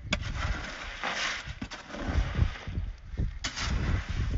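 Wet concrete being worked by hand: irregular bursts of scraping and sloshing from a hoe in a mortar tub of concrete, over an uneven low rumble.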